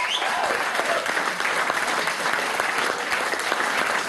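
Audience clapping and applauding steadily.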